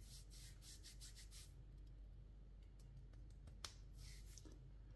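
Faint rubbing of a hand over a bare arm: a quick run of soft brushing strokes for the first second and a half, then a few scattered light ticks, one sharper past the middle.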